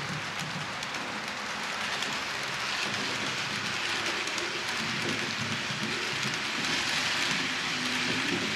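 H0-scale model train, an EU44 electric locomotive model pulling passenger coaches, rolling past on curved track: a steady rushing rattle of small wheels on the rails that grows a little louder in the second half.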